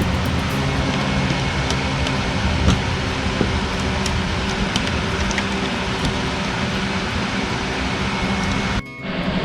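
Steady engine hum with a few faint light clicks over it. It drops out briefly near the end.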